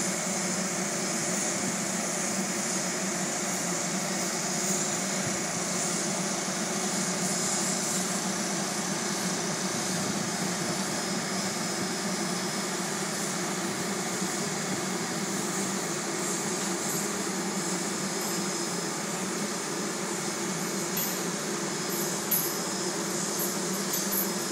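Heritage-railway passenger train rolling slowly past: the coaches give a steady, even mechanical hum and rumble, with a few light clicks near the end.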